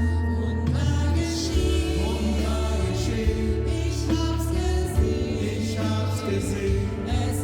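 Choir singing, with steady low notes sustained underneath.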